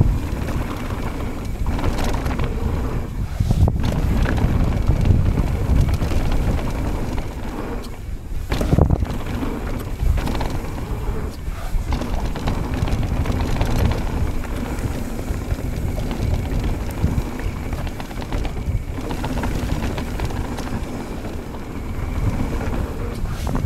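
Mountain bike riding downhill on a dirt and gravel trail: steady wind noise buffeting the handlebar camera's microphone over the rumble and rattle of the tyres and bike on the rough surface.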